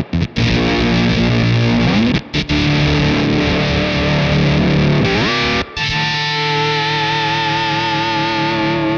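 Jazzmaster-style electric guitar through a Fender Shields Blender octave-up fuzz pedal, playing thick distorted sustained chords. The chords are cut by brief sputtering dropouts from the pedal's sag circuit. About five seconds in the notes slide upward into a held chord that wavers in pitch.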